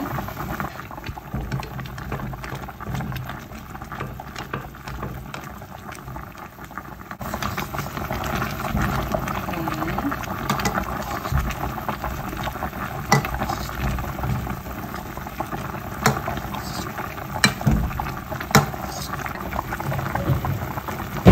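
Broth bubbling at a rolling boil around a whole chicken in a stainless steel pot, a steady bubbling hiss, with a few sharp clicks in the second half.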